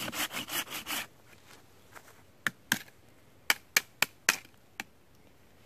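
Hand pruning saw cutting through a pine stump in quick rasping strokes for about a second, then about seven sharp wooden knocks spread over the next few seconds.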